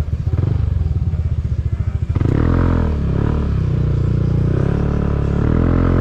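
Motorcycle engine running with a steady low pulsing note. About two seconds in it gets louder, and its pitch then rises and falls several times as the throttle is worked.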